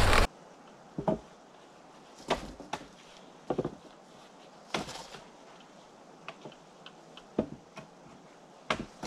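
Wooden poles knocking against each other and against the log frame as they are handled and laid in place: about a dozen short, separate knocks at irregular intervals over a quiet background. A loud rush of noise cuts off abruptly at the very start.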